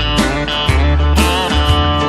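Instrumental break of a country song: a guitar lead with bending notes over a bass line and a steady drum beat.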